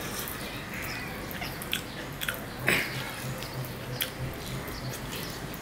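Close-up sounds of eating rice and mutton curry by hand: wet chewing and mouth smacks, with a few sharp clicks at irregular intervals, the loudest about halfway through.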